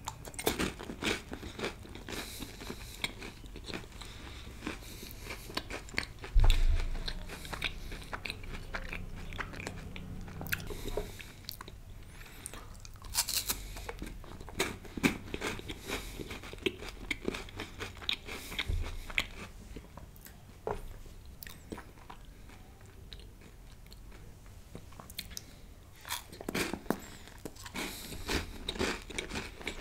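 Close-miked eating: chewing and biting with frequent crisp crunches and wet mouth sounds. A single low thump about six seconds in is the loudest moment.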